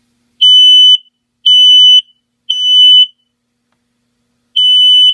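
Household smoke alarm sounding under test: loud, high-pitched beeps of about half a second each, three in a row a second apart, a pause, then the next group beginning. This is the standard temporal-three evacuation pattern.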